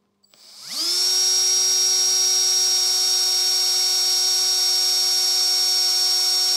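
Electric drill spinning up over about half a second and then running at a steady whine, turning a Fiat Dino Coupe's wiper worm drive and crank mechanism. The mechanism is being tested and runs freely, with nothing wrong with it.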